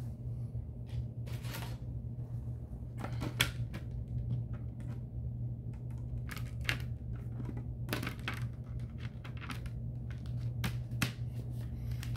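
Plastic Lego baseplate handled, set down on plywood and pressed flat by hand: scattered sharp clicks and taps over a steady low hum.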